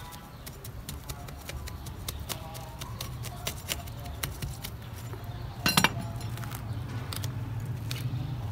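Hard objects being handled, making many small sharp clicks and clinks, with one louder clatter a little before six seconds in.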